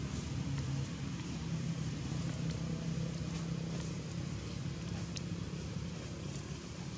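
A motor vehicle engine running with a steady low hum.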